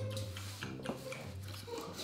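Quiet, low, steady 'mmm' eating noises from a man pretending to eat from a dog's food bowl, with a few small clicks.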